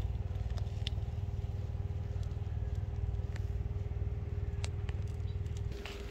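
A low engine rumble, running steadily with a regular pulse, that falls away near the end; a few light sharp clicks and a thin steady hum sit over it.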